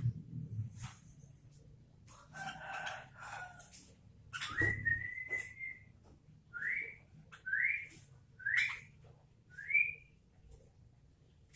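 Sooty-headed bulbul calling: a scratchy chatter, then one long whistled note, then four short rising whistles about a second apart, with scattered clicks between.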